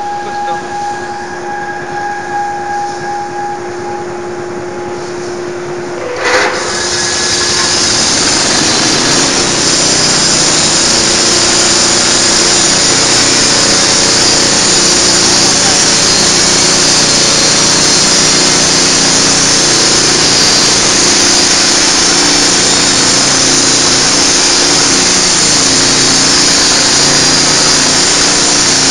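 YES-700GX band sawmill running with a steady machine whine; about six seconds in there is a knock, then the blade goes into the log and the sound builds over a couple of seconds into a loud, steady sawing noise with a strong high edge that carries on through the cut.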